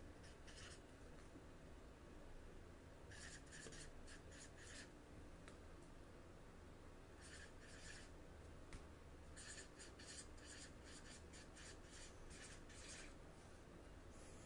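Felt-tip marker writing on paper: faint runs of short scratchy strokes in four spells with pauses between, the longest run near the end.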